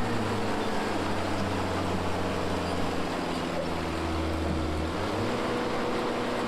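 A large engine running steadily with a low, even hum under a loud rushing noise; the lowest part of the hum drops out about five seconds in.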